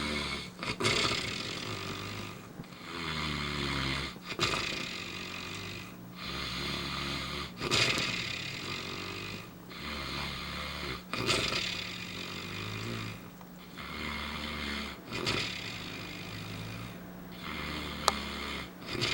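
An adult man snoring in his sleep, one snoring breath every three to four seconds in a steady rhythm, over a faint steady hum.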